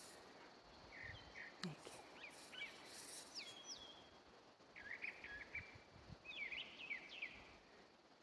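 A songbird singing faintly in two bouts of quick chirps and short whistled notes that slide up and down, with a pause between the bouts.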